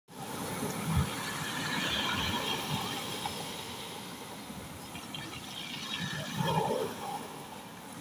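Small sea waves breaking and washing up over a pebble beach, a steady hiss of surf that swells and ebbs, with a low thump about a second in.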